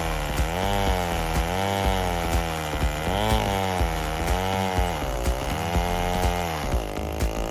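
Big-bore chainsaw engine (a 105cc Neotec 8105) running at high revs while milling a marri log. Its pitch rises and falls about once a second as it labours in the cut, and sags deeper a little past five seconds and again near the end.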